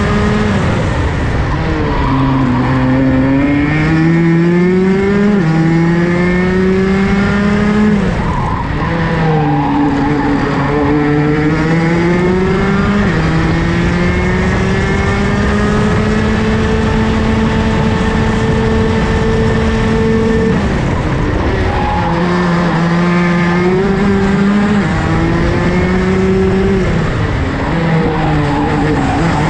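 Rotax DD2 race kart's 125cc two-stroke single-cylinder engine at racing speed, heard onboard. The revs fall and climb repeatedly through the corners, stay high and steady on a long straight past the middle, then drop sharply under braking.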